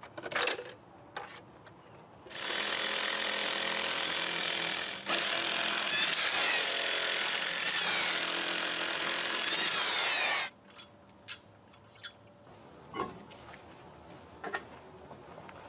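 Cordless impact wrench hammering the lug nuts loose on a car's rear steel wheel, in two long runs: one of about two and a half seconds, then after a brief stop one of about five seconds. Before it come a few clicks as the plastic hubcap is pulled off. After it come scattered clicks and knocks as the nuts and wheel come off.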